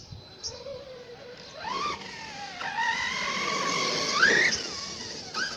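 Redcat Kaiju 1/8-scale brushless electric RC monster truck's motor whining under throttle. The pitch rises about one and a half seconds in, dips and holds steady, then climbs sharply and cuts off near the end as the truck passes close by.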